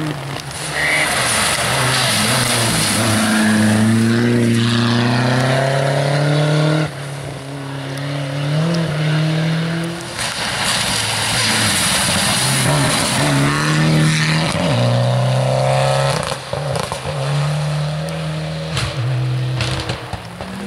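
Rally car engine revving hard through the gears on a wet gravel stage. The engine note climbs, drops at each gear change several times, and builds as the car comes past, over a steady hiss of rain.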